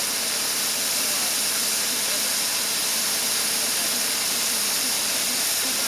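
Live-steam scale locomotive hissing steam steadily and evenly.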